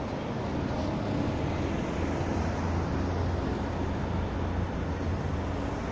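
Busy multi-lane city traffic heard from above. The low engine drone of buses passing underneath swells through the middle and then eases.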